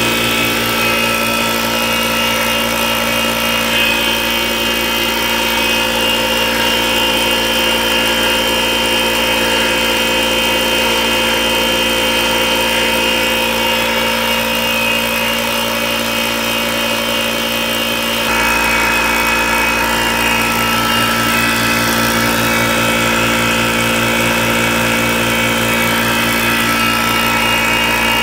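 Small water-cooled high-pressure PCP air compressor running steadily while filling an air tank, a continuous mechanical hum with several steady tones. Its tone shifts slightly about two-thirds of the way through.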